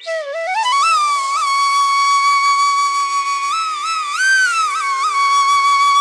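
Background music: a solo flute glides up over the first second into a long held note, with a few bends and ornaments in the middle, over a faint steady drone.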